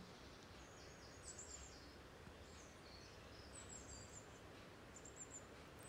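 Near silence: low outdoor background hiss with faint birdsong, a few brief runs of high, quick chirps.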